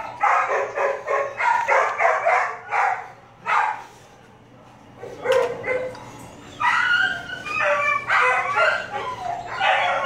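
Dog barking in quick runs of short barks, with a brief pause about four seconds in.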